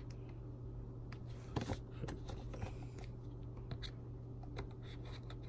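Blade of a folding multitool slitting the clear tape seal on a cardboard box: faint scattered clicks and scrapes as it cuts and the box is handled, with a couple of sharper ticks about a second and a half in. A steady low hum runs underneath.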